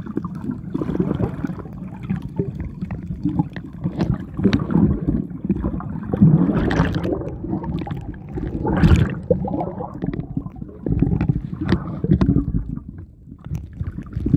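Muffled water sloshing and gurgling as heard by a microphone underwater, an uneven low rumble with irregular splashes and knocks, loudest about six and nine seconds in.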